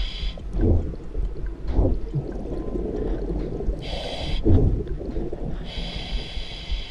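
Scuba diver breathing through a regulator underwater. Hissing inhales come right at the start, briefly about four seconds in, and again near the end, with bursts of bubbling, rumbling exhales in between.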